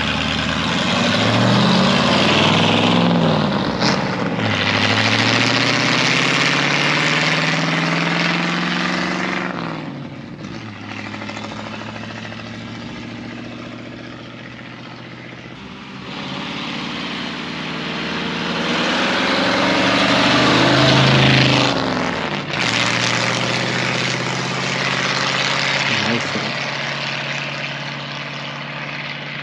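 1937 Ford's 59AB flathead V8 running through open straight pipes, accelerating past with the engine note climbing and dropping back at each gear change, fading as it pulls away, then coming by hard again. The owner says it breaks up a little here and there, probably because the ignition timing is not yet set.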